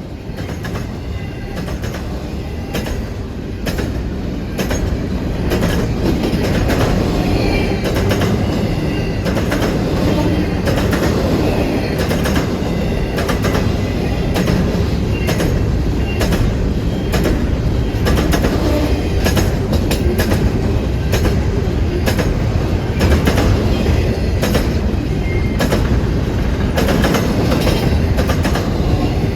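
Freight train rolling past, its wheels clicking over rail joints in a regular rhythm over a heavy rumble, growing louder over the first several seconds and then holding steady.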